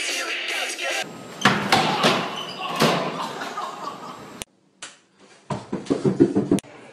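Thuds and clatter of people falling off running treadmills onto the gym floor, then after a short silence a quick run of loud, heavy thumps: feet pounding up a staircase in the dark.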